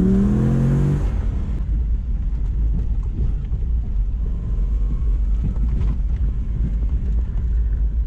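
Inside the cab of a Mitsubishi Delica van driving on a gravel road, its swapped-in Toyota 1UZ-FE VVTi V8 running under a steady deep rumble of engine and road noise; in the first second the engine note drops slightly in pitch as it eases off.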